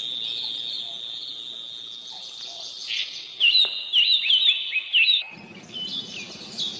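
A steady high-pitched tone fades out and gives way to a bird chirping, a quick run of short falling chirps about three seconds in. Near the end a lower, noisy sound comes in under it.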